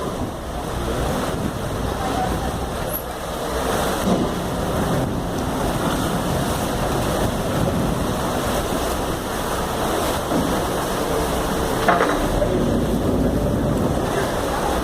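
Wind buffeting the microphone over harbour water and a ferry's engine as it comes alongside the wharf. There is a brief knock about twelve seconds in.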